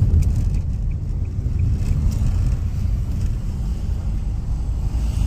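A car driving at low speed, heard from inside the cabin: a steady low rumble of engine and tyres on the road.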